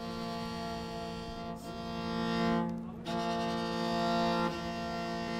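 Instrumental music: a slow line of long sustained notes, each held for about a second and a half before moving to the next.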